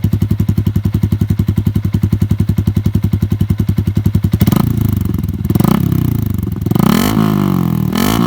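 Yamaha Sniper 150's single-cylinder four-stroke engine breathing through an SC Project exhaust canister. It idles with an even, rapid pulse, then about four and a half seconds in it is revved in several quick throttle blips, each rising and falling back. The note is deep and bassy, and fairly loud.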